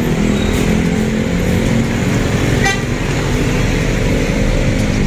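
City street traffic: a large city bus's engine running as it drives past, with motorcycles and cars around it. A short horn toot about two and a half seconds in.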